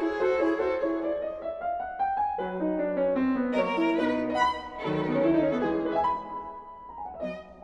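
Background music: a violin playing a melody over piano accompaniment.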